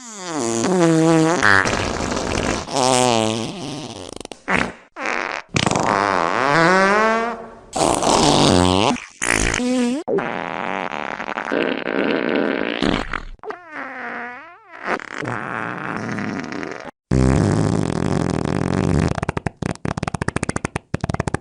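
A run of fart sounds, one after another with short gaps between them. Some are long with a wavering, bending pitch; others are rapid sputtering rattles, more of them toward the end.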